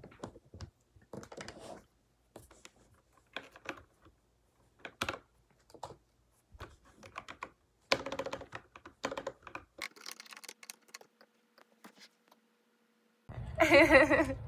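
Typing on a computer keyboard, keys clicking in irregular bursts. Near the end it gives way suddenly to a loud, excited voice over low outdoor rumble.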